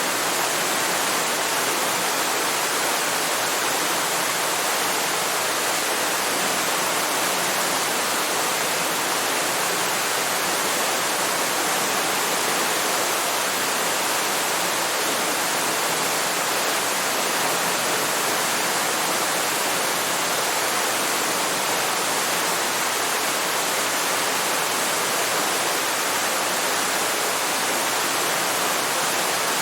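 Waterfall: water falling and rushing in a steady, even hiss with little deep rumble, unchanging throughout.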